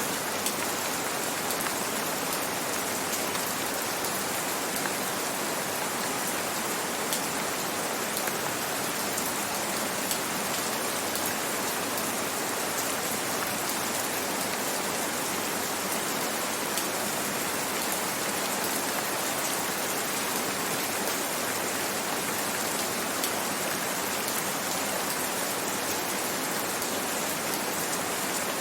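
Steady rain falling, an even hiss with fine drop patter.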